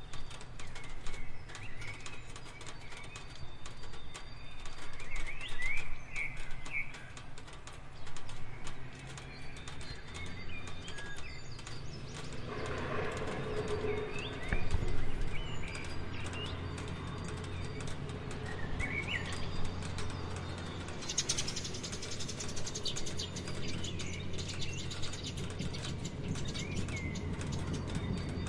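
Steady rain pattering, with small birds chirping now and then over it.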